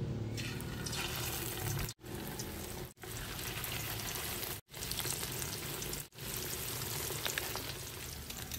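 Hot oil sizzling and crackling in a steel wok as flour-coated adobo meat pieces are lowered in with tongs: a steady frying hiss. It drops out abruptly for a moment four times.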